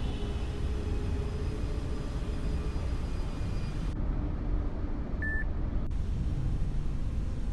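Steady low rumble of outdoor traffic ambience, with a single short electronic beep a little over five seconds in.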